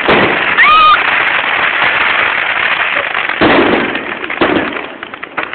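Fireworks bursting overhead, with a dense, continuous crackle of many small reports. Fresh loud bursts come about a second in, about three and a half seconds in and about four and a half seconds in.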